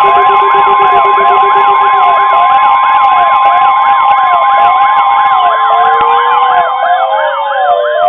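Several NOAA weather alert radios sounding their alarms at once for a new severe thunderstorm warning: a fast repeating warble, a steady high tone (the Weather Radio 1050 Hz warning tone) and slower sweeping alert tones, all layered together and loud. A lower steady tone drops out a couple of seconds in, and rising glides join near the end.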